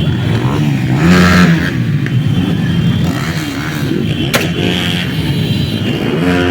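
Motorcycle engines running and revving together, with a louder rev about a second in and a single sharp crack a little past four seconds in.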